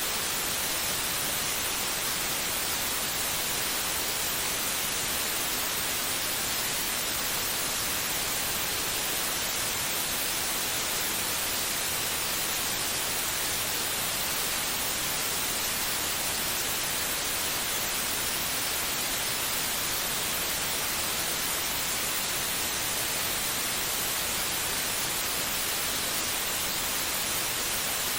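Steady white noise: an even, unchanging hiss, strongest in the high range, with no rhythm or variation.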